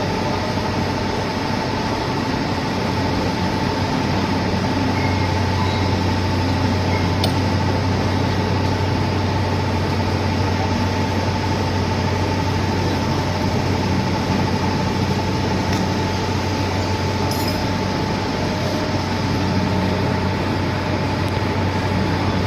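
Lathe machine running steadily, a constant low motor hum with a steady whine above it and a couple of faint ticks.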